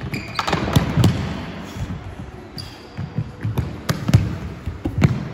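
A run of sharp thuds from futsal balls being struck and bouncing on a wooden sports-hall floor, mixed with the thumps of a goalkeeper diving and landing. Each impact rings on briefly in the large hall.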